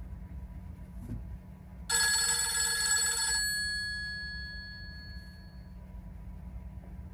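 Nokia E90 Communicator ringtone from its loudspeaker: a bright chord-like ring starts about two seconds in, holds for about a second and a half, then fades out over the next two seconds, over a steady low hum.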